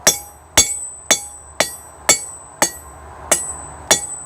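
Hand hammer striking hot titanium rod on an anvil, an even run of eight blows at about two a second, each leaving a short bright metallic ring.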